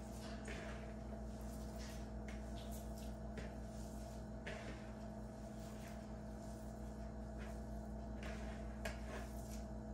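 Hands squeezing and mashing boiled egg into shredded chicken in a plastic bowl: soft, irregular squelching and rustling over a steady low hum.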